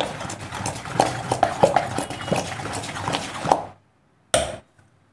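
A spoon stirring thick appe batter in a stainless steel bowl, scraping and clinking against the bowl with many small clicks, stopping about three and a half seconds in. A single short knock follows near the end.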